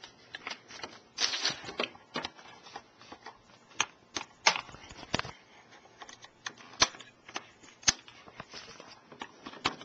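Handling noise from an airsoft Thompson gun as its battery and wire are packed into place: irregular sharp plastic clicks and short scrapes and rustles, with a longer scrape about a second in.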